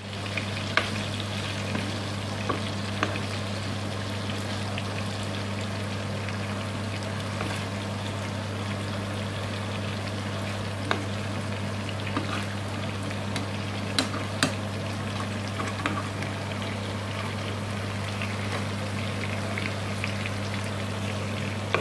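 Chicken drumsticks sizzling in sauce in a frying pan, while a spoon stirs and bastes them, clinking sharply against the pan now and then.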